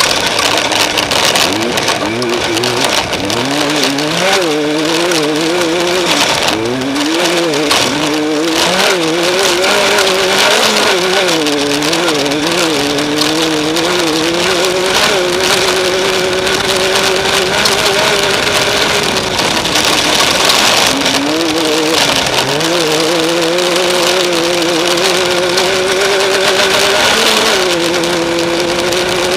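Off-road race vehicle's engine running hard, its pitch rising and falling constantly with the throttle, over a steady rush of wind and driving noise. About two-thirds of the way through the pitch drops away and then climbs back up.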